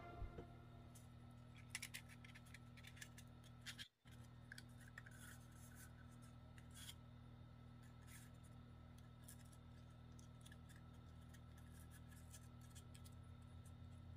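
Very faint rustling and crinkling of pink craft paper being rolled into a tube and handled, with scattered soft clicks.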